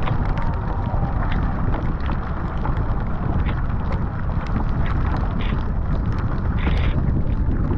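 Wind buffeting the microphone in a steady low rumble while a surfski moves through choppy water, with short splashes of wing-paddle strokes, two of them plain near the end, and light scattered ticks of rain.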